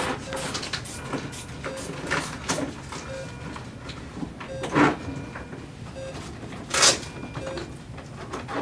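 A manual blood pressure cuff being taken: rustling and short puffs of air as the cuff works, with a louder hiss of air released about seven seconds in. Soft monitor beeps repeat about every one and a half seconds, a slow rate that fits the patient's heart rate in the 40s.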